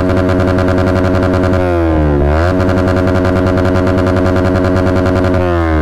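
Yamaha R15 M's 155 cc single-cylinder engine revved hard through an aftermarket Akrapovic exhaust. It is held at high revs, with a quick drop and climb back about two seconds in and another near the end.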